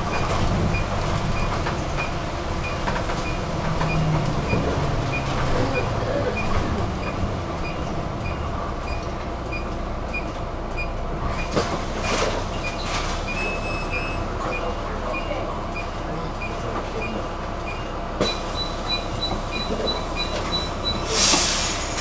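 Inside a city bus under way: steady engine and road rumble with a regular beeping about three times every two seconds. Near the end a faster, higher beeping starts, then a short loud hiss.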